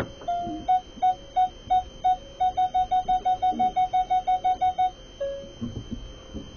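Hyundai Santa Fe's reversing parking-sensor beeper: short beeps at about three a second that quicken to about seven a second, the sign of the car closing in on an obstacle behind. A sharp click comes at the start, and a single lower tone sounds after the beeping stops.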